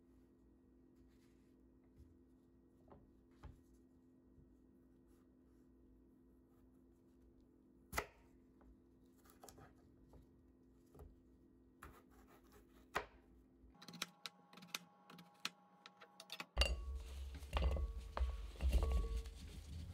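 Chef's knife cutting potatoes into wedges: sparse, separate knocks as the blade comes through onto a plastic cutting board, the sharpest about eight seconds in. Near the end, potato wedges are tipped into a glass bowl lined with paper towel, with denser rustling and light knocks.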